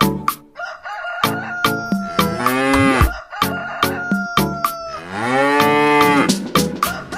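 Cow mooing twice, a short low moo followed by a longer drawn-out one, over background music with a steady clicking beat.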